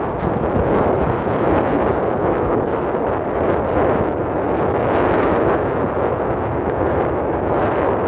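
Jet airliner engines at takeoff thrust, a loud steady roar, from a heavily loaded plane on its long takeoff roll.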